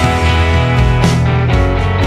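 Background instrumental rock music with guitar, at a steady level.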